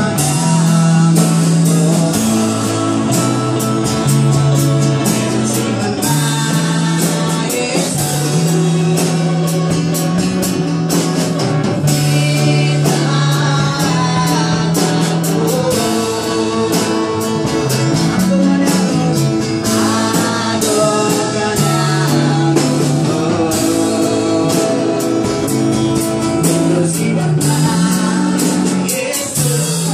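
Worship song: voices singing over a band with a drum kit and a steady bass line.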